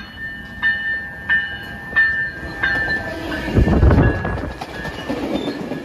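A bell rings in even strokes, about three every two seconds, and stops about three seconds in. A train's deep rumble then swells, loudest around four seconds in, and gives way to a rushing noise.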